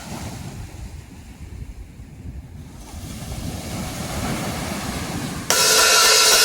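Ocean surf: a low rumble of waves that swells steadily louder. About a second before the end it gives way suddenly to a much louder, harsher wash of sound as the heavy song's opening comes in.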